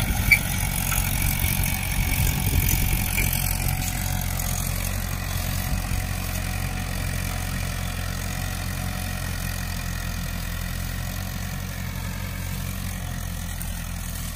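Swaraj 843 XM tractor's diesel engine running steadily under load as it pulls a cultivator lowered fully into the soil, holding its rpm without dropping. A brief sharp click comes right at the start, and the engine grows slightly fainter as the tractor moves away.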